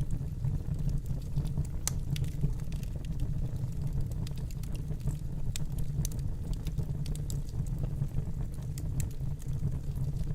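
Wood fire burning in a fireplace: a steady low rumble of flames with frequent small crackles and pops scattered through it.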